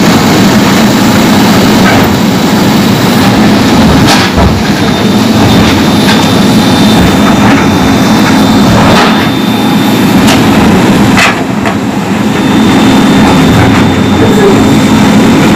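JCB backhoe loaders' diesel engines running steadily, with a few sharp knocks scattered through.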